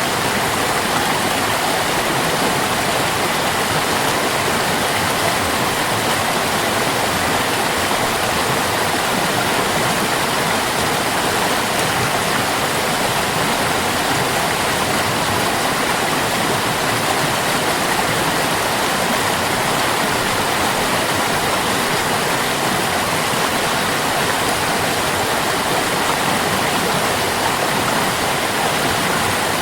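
Water in a stream flowing steadily, an even, unbroken wash of running water that stays at the same level throughout.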